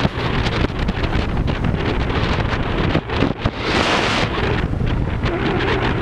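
Heavy wind buffeting the microphone of a motor scooter rider moving along a road, a steady rush of air over low road noise, swelling to a louder, hissier rush about four seconds in.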